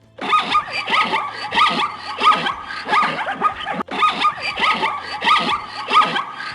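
Zebra calling: a rapid series of high, yelping barks, about three a second.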